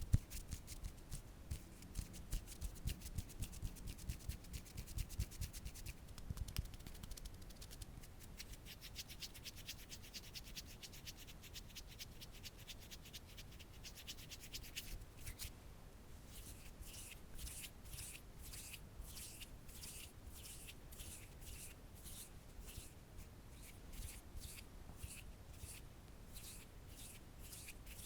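Close-miked ASMR trigger sounds made by hands on an object: quick, scratchy rubbing strokes. After a short pause about halfway, they go on slower and evenly spaced, at about two strokes a second.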